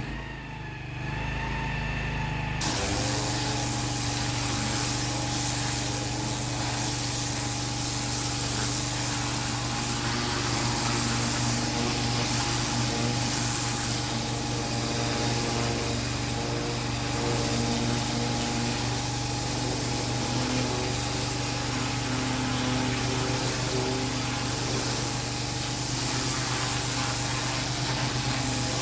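Pressure washer jetting water onto block paving. The spray starts about three seconds in and then runs steadily as a dense hiss, over the machine's constant hum.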